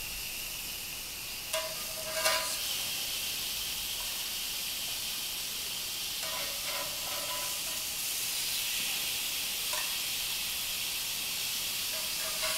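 Ground pork patties sizzling on an oiled, preheated cast iron grill pan: a steady hiss that gets a little louder as more patties go down. A few light clinks of a metal spatula against the pan.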